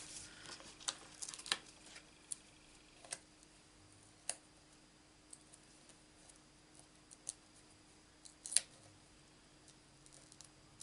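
Hands handling small paper craft pieces on a craft mat: faint scattered clicks and taps, with a handful of sharper ticks, over a faint steady hum.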